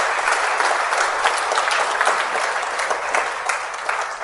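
Congregation applauding: many hands clapping in a steady round that begins to die away near the end.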